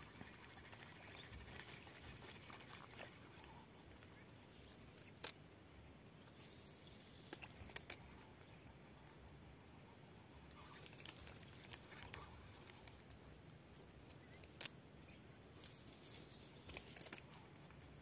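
Near silence: faint outdoor ambience with a thin steady high tone and a handful of short sharp clicks scattered through it.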